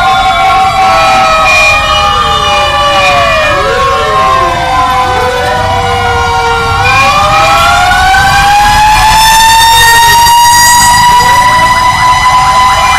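Several fire truck sirens wailing at once and out of step, their rising and falling tones crossing one another, with one siren climbing about halfway through and holding a high note. Underneath is the low rumble of heavy truck engines passing close by.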